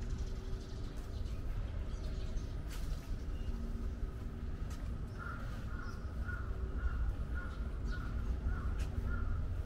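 A crow cawing in a quick run of about ten short calls, starting about five seconds in, over a low steady rumble.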